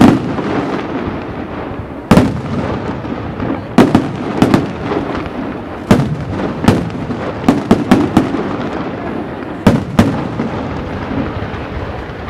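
Aerial fireworks display: a string of sharp, loud shell bursts at irregular intervals, about a dozen in all, with crackling and rumbling reverberation filling the gaps between them.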